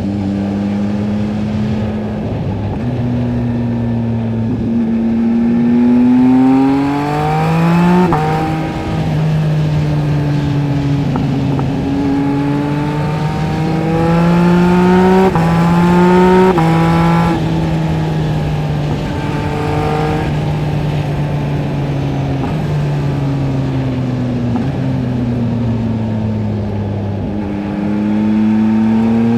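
Yamaha MT-09 SP's three-cylinder engine through a LeoVince LV Race exhaust, riding under load: it climbs in pitch and drops sharply at each quick upshift, about a third of the way in and again several times around the middle. Then it rolls off with the pitch falling, and there are short rises at downshifts near the end.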